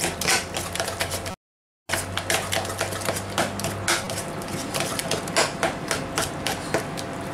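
A utensil stirring a thick, creamy sauce in a mixing bowl, with irregular clicks and knocks as it strikes the bowl's sides. The sound cuts out completely for about half a second, one and a half seconds in.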